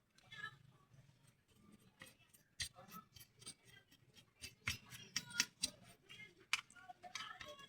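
Irregular sharp clicks and taps of small parts and tools being handled during an electric razor repair. The clicks are sparse at first and come more often from about two seconds in.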